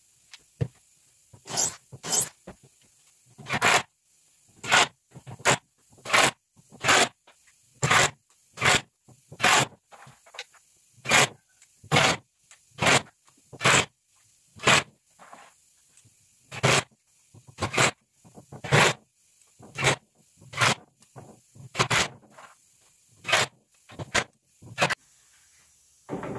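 Repeated short scraping strokes on wood, about one a second, each cut off by a brief pause, as when the wood is being worked by hand.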